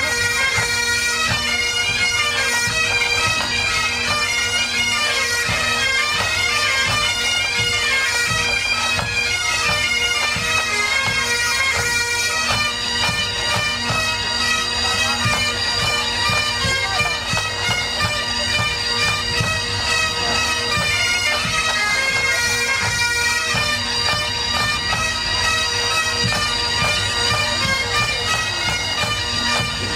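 Pipe band playing: Highland bagpipes carrying a tune over their steady drones, with drumbeats underneath.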